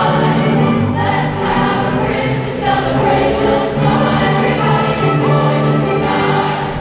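Large combined choir singing with orchestra and wind ensemble accompanying, many sustained notes moving together.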